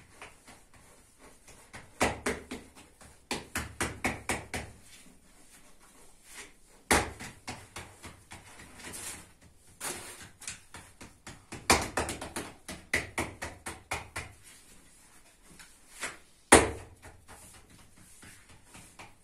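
Hands patting and pressing flatbread dough for a tanoor on a cloth, in quick runs of slaps about four a second, with a couple of louder single slaps.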